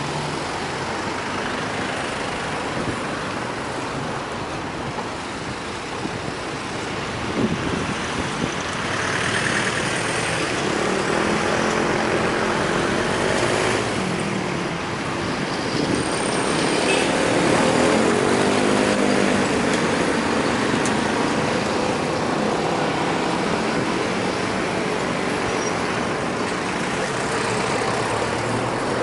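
Street traffic: vehicle engines and tyre noise running steadily, with one engine rising and falling in pitch past the middle.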